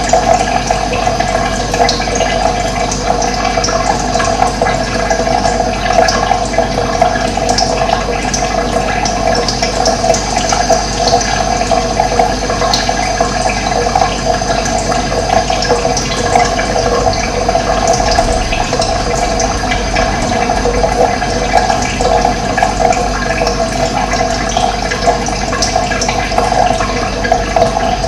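Running water rushing steadily and evenly, a continuous full splashing flow with no pauses.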